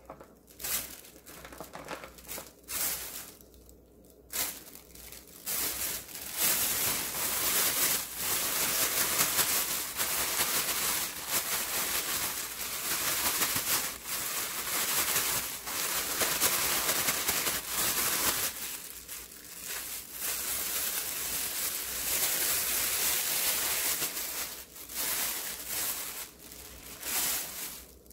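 Thin plastic bag crinkling as it is shaken with shishito peppers and flour inside to coat them. A few short rustles at first, then about twelve seconds of continuous hard shaking, a lighter stretch, and more shaking that stops just before the end.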